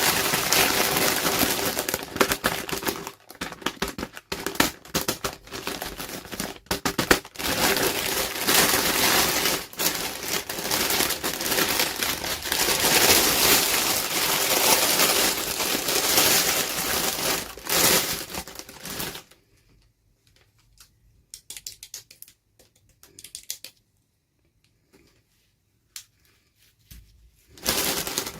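Packaging crinkling and rustling as it is handled and opened for a toy unboxing: dense crackle with sharp clicks for most of the time. It stops about two-thirds of the way in, leaving only a few light clicks, and then a short burst of crinkling comes near the end.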